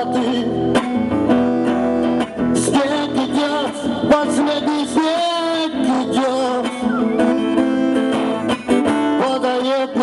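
Live acoustic music played through a stage PA: acoustic guitar accompaniment with a wavering melody line carried over it.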